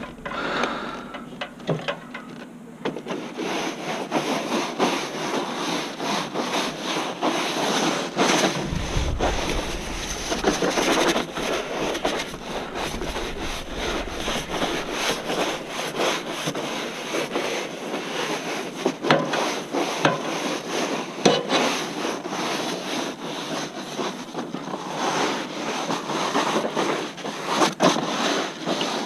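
Power Stroke 2200 PSI gas pressure washer spraying water against vinyl siding: a rough, uneven hiss that grows fuller about three seconds in.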